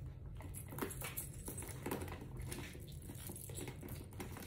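Faint handling noises from a leather handbag and its strap hardware: scattered light clicks and rustles over a low steady room hum.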